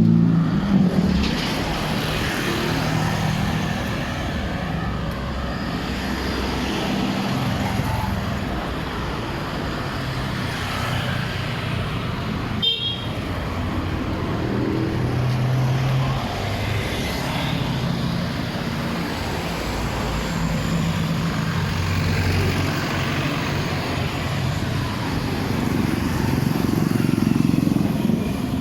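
Street traffic: the engines of passing vehicles rise and fall over a steady road noise, with one sharp click about halfway through.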